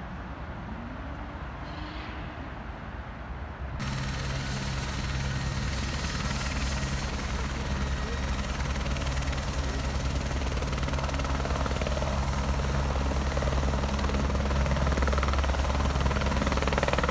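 Eurocopter AS355 N twin-engine turboshaft helicopter running on the ground with its main rotor turning: a steady low hum that grows gradually louder. It starts suddenly about four seconds in, after a quieter opening stretch of general outdoor noise.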